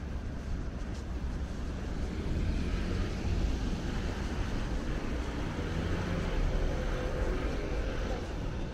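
Steady low rumble of passing motor traffic, swelling slightly in the middle.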